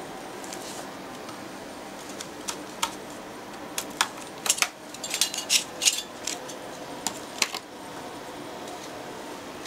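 Steady fan noise from a running open PC test bench, with a scatter of light clicks and taps that bunch together about halfway through.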